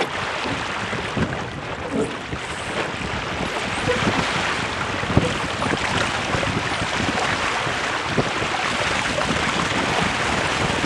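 Wind buffeting the microphone over the rush of water along a Weta trimaran's hull and ama as it sails fast through chop, with frequent short splashes and slaps of water.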